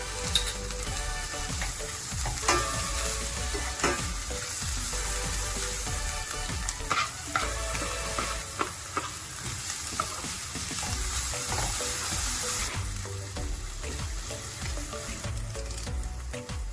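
Sliced onions sizzling as they fry in a stainless steel sauté pan, stirred with a metal spoon that clinks sharply against the pan now and then.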